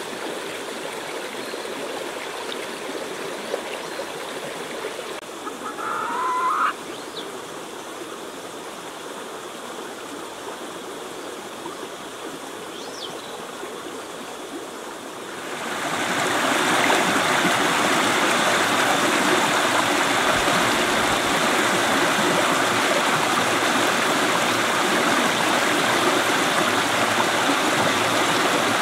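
River water running steadily, getting louder about halfway through. A chicken squawks once, about six seconds in.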